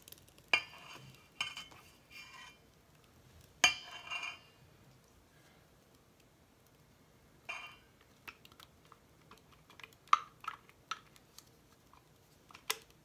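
Metal clinks and taps on a stainless steel mixing bowl with a wire whisk in it, about eight sharp ringing knocks spread unevenly, as cake batter liquid is poured in and the utensils are shifted.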